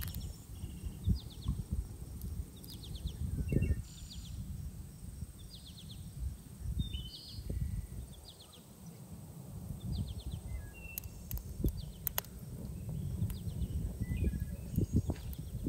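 Birds chirping in short calls repeated every second or so over a steady low outdoor rumble, with a few sharp clicks about three-quarters of the way through.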